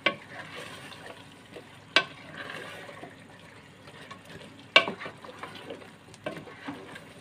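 A spoon stirring chicken, potato wedges and tomatoes frying in an aluminium pot, with a soft sizzle and four sharp knocks of the spoon against the pot.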